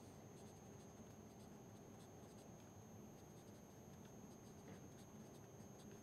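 Faint scratching of a felt-tip marker writing on paper in short irregular strokes, over quiet room noise.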